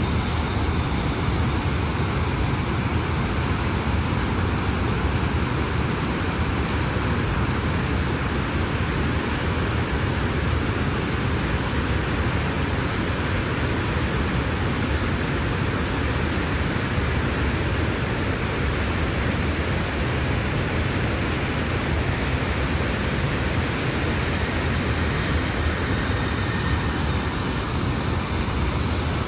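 Steady rush of falling water from a large waterfall, an even noise that does not change.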